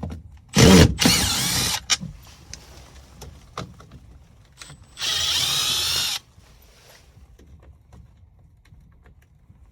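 Cordless power drill run in two short bursts on an air handler's sheet-metal cabinet: a loud one about half a second in lasting just over a second, and a steady one of about a second near the middle.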